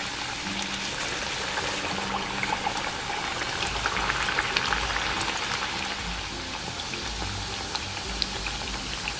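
Nippattu (rice-flour crackers) deep-frying in hot oil in a steel pan: a steady bubbling sizzle full of small crackles. It grows a little louder for a couple of seconds about three seconds in.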